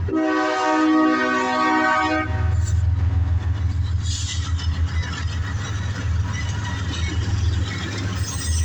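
Freight locomotive air horn sounding a chord of several notes, cutting off about two seconds in, followed by the steady deep rumble of the diesel locomotives and freight cars passing.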